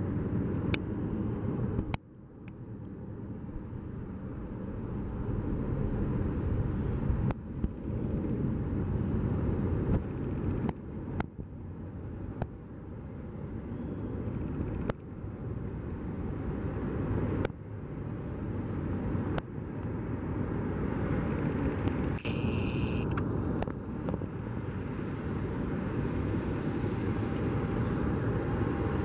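Steady low rumble of jet airliners taxiing on the airport's taxiways, broken by several abrupt cuts. A brief high tone sounds about three-quarters of the way through.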